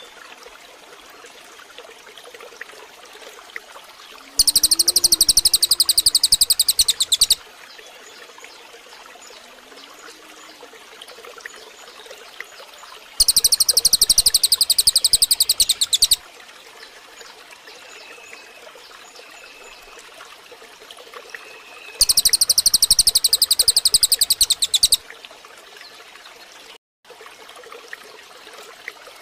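A songbird's rapid, high, loud trill in three bursts of about three seconds each, roughly nine seconds apart. Between the bursts there is a faint background of hiss and a few soft bird notes.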